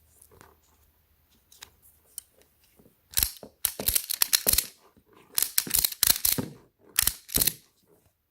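Ratchet tie-down strap and hardware being handled: a few faint clicks, then three loud, rough scraping bursts of about a second each, made of rapid clicks.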